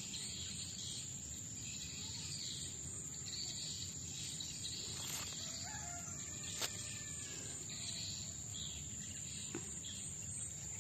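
Outdoor rural ambience: a steady high-pitched drone of insects with faint bird calls past the middle, and one short light knock as corn ears are handled in a plastic crate.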